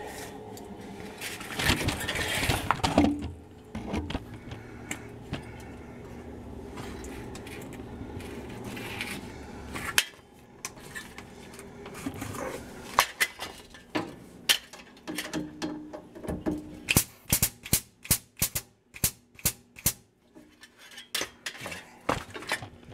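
Metal clicks and clinks of a hand grease gun being worked on the front-end grease fittings of an old truck's steering linkage. The first few seconds are a rattling, rubbing clatter; from about halfway through comes a long irregular run of sharp clicks.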